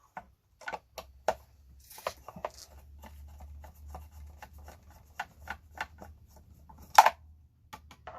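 Tools and hard plastic parts being handled on a table: scattered clicks and light knocks while a bigger screwdriver is fetched, with one sharper knock about seven seconds in.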